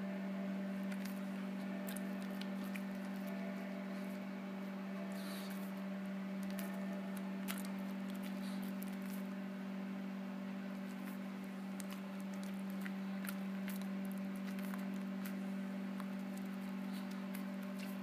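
A steady low electrical hum with fainter overtones, unchanging throughout, with a few faint scattered clicks over it.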